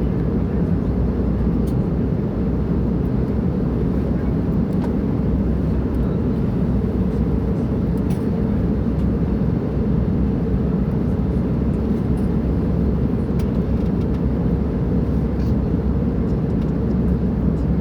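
Steady airliner cabin noise in flight: an even roar of jet engines and airflow, heavy in the low range, as the plane descends.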